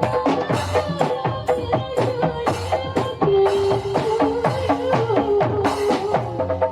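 Modern marawis ensemble playing: a quick, dense rhythm of hand-struck marawis drums with a held melody line over it.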